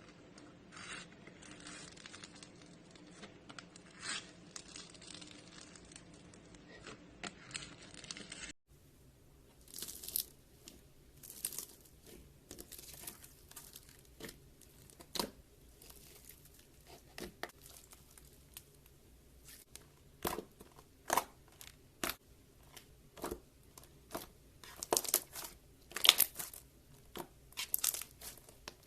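Slime being worked by hand, giving irregular crackling, tearing and popping sounds. There are two clips: a softer, continuous crackle, then after a cut about a third of the way in, sharper separate pops and snaps that grow louder near the end.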